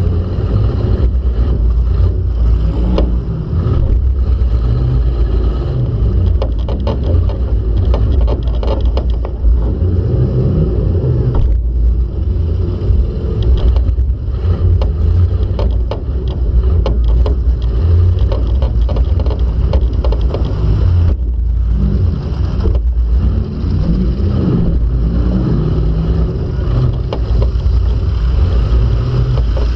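Demolition derby car's engine heard from on board, loud and revving up and down repeatedly as the car manoeuvres, with clanks and rattles of battered body metal over it.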